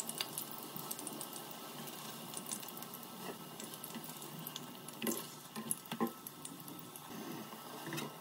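Vegetable oil sizzling and crackling in a stainless steel frying pan as potato patties fry, with a few light knocks of a slotted spatula against the pan past the middle.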